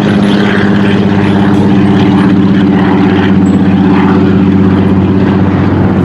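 Single-engine floatplane's propeller engine running in flight, a loud, steady drone that holds one pitch.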